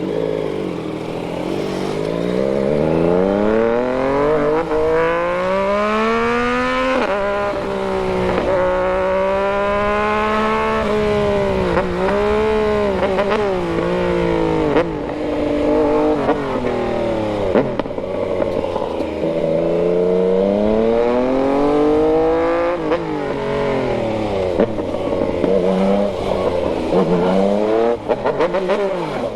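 Yamaha MT-09 inline three-cylinder engine under way, revs climbing through the gears and easing off, its pitch rising and falling repeatedly with sudden drops at gear changes.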